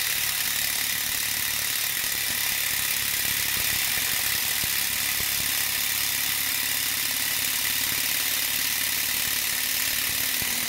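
Impact driver running flat out, with its hammer mechanism impacting rapidly as a 1/4-inch Hercules high-speed-steel hex-shank impact bit grinds through 304 stainless steel. The steady, unbroken noise is a bit overspeeding and going dull under heavy resistance.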